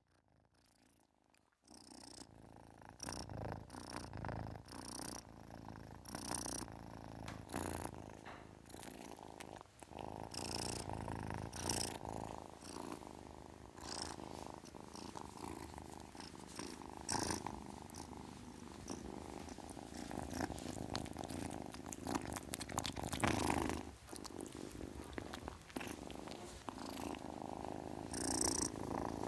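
A kitten purring steadily and close up, starting about two seconds in after silence, with short hissy or rustling noises now and then over the purr.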